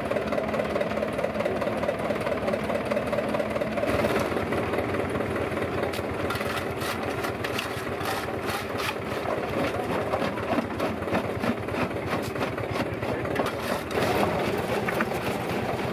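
Vintage tractor engine running under load, driving a belt-driven stone crusher through a long flat belt. From about four seconds in, the crusher clatters with rapid knocks and cracks as bricks and stones are broken in it.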